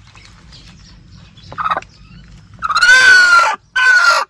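Chicken calling loudly: a short call about a second and a half in, then two long, loud, drawn-out calls near the end. This is the kind of hen commotion taken for an egg-laying cackle, though the hen turns out not to have laid.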